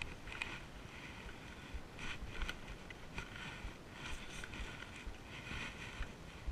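Wind buffeting the microphone, a steady low rumble, with a few light knocks and clicks scattered through it, the loudest about two and a half seconds in.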